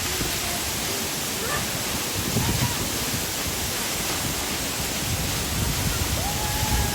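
Steady roar of water falling at a large waterfall, an even rushing noise, with wind buffeting the microphone in low rumbles now and then.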